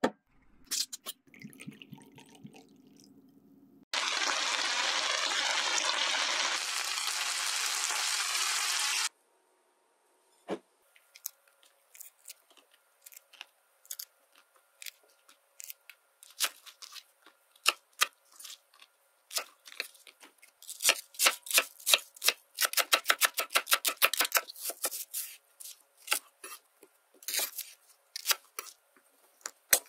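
A loud steady hiss for about five seconds, then a kitchen knife cutting on a wooden cutting board: scattered single cuts, with a fast run of about ten chops a second midway through.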